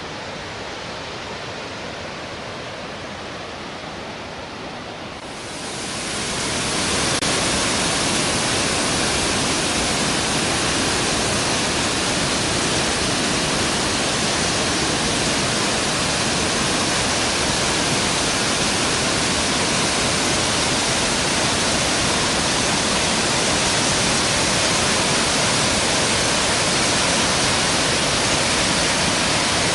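Waterfall, falling water rushing in a steady, even noise; about five seconds in it grows louder and brighter and then holds.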